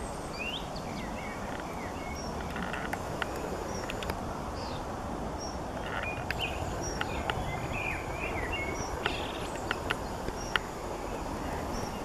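Outdoor ambience: a steady low rush of background noise with small birds chirping and calling on and off, and a few sharp clicks, the loudest about ten and a half seconds in.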